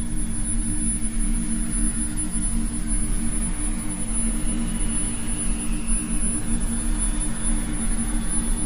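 Steady, loud low droning rumble with two steady low hum tones beneath it, unchanging throughout.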